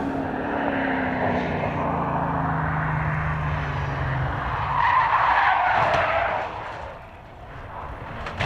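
Holden Torana's engine running with a steady note for about four seconds. About five seconds in comes a loud rushing, skidding noise, and then the sound fades away. A sharp click comes near the end.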